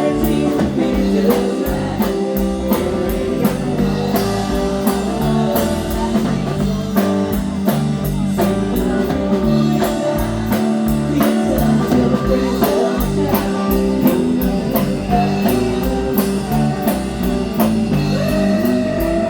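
Blues-rock music: guitar over a drum kit keeping a steady beat.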